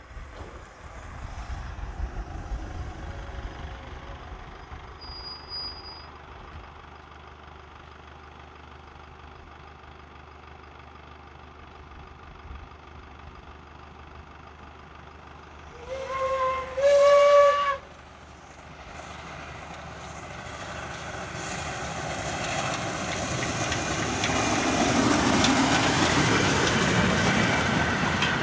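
Steam train approaching and passing: the whistle of the Energie 507 / Tubize steam locomotives sounds once, briefly, a little past halfway, stepping up slightly in pitch partway through; then the locomotives' exhaust and the rolling wheels of the train grow steadily louder as the engines and coaches pass close by.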